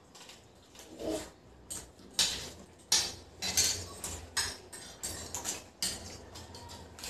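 Forks and a spoon clinking and scraping against plates while noodles are gathered and eaten, in irregular sharp clicks that are loudest in the middle of the stretch.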